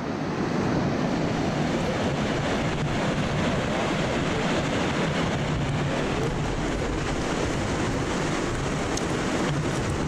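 Ocean surf surging and breaking through a narrow rocky channel between sea stacks, a steady rushing wash.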